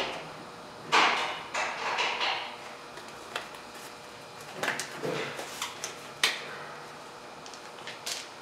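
Intermittent clinks and clatter of hand tools and metal brake parts being handled: short rattles about a second in and around two seconds, more near five seconds, and a sharp click a little after six.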